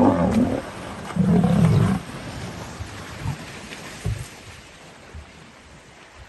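Lion growling loudly twice in the first two seconds, then splashing in water that carries on more quietly.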